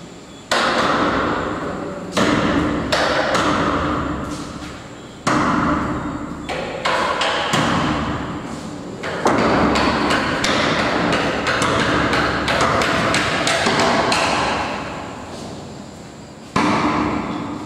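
Repeated loud banging, a dozen or so irregular blows a second or two apart, each ringing out in a long echo through a bare, empty room.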